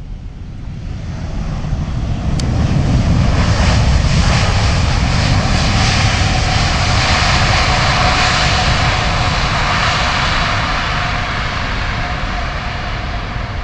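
Airbus A380's four jet engines passing close by on the runway. The roar builds over the first few seconds to a loud peak and carries a steady whine, then eases slowly before cutting off abruptly.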